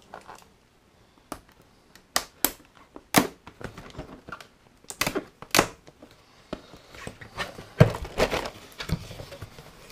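Cardboard carton being pried open by hand: a handful of sharp snaps and cracks as the lid flaps pull free, then scraping and rustling of cardboard with a knock as the lid is lifted.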